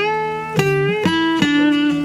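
Guitar being plucked: four notes struck about half a second apart, each ringing on over a held lower note.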